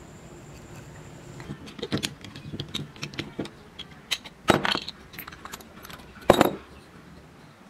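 A metal C-clamp being handled and undone from a wooden handle blank, then set down on a hard stone surface: a run of small metallic clicks and knocks, with two louder knocks about four and a half and six seconds in.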